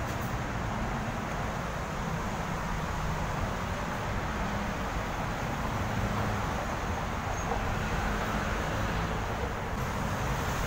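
Steady rumble of road traffic, an even noise with no distinct events.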